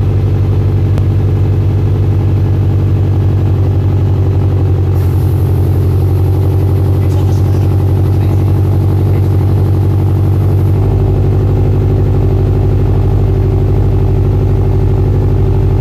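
2013 Subaru WRX STI's turbocharged 2.5-litre flat-four (boxer) engine idling steadily through a freshly installed Invidia Q300 cat-back exhaust, with a deep, even boxer rumble.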